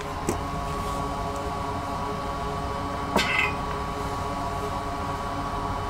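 Steady low hum of running bench equipment with a faint steady whine, broken by two sharp clicks: one just after the start and a louder one about three seconds in.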